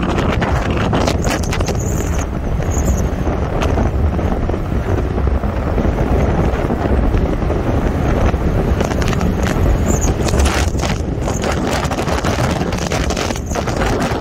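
Heavy wind rush buffeting the microphone of a camera on a moving motorcycle, a steady rumbling roar heaviest in the lows, with a few brief knocks.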